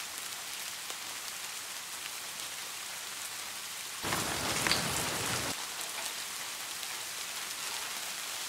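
Steady crackling hiss, like rain pattering, with a louder rush of noise about four seconds in that lasts about a second and a half.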